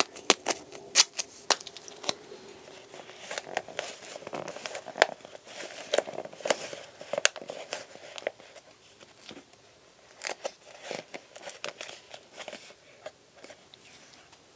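Adhesive tape being pulled, torn and pressed onto a thin clear plastic cup, with the plastic crinkling: a run of sharp clicks and crackles that grows sparser in the last few seconds.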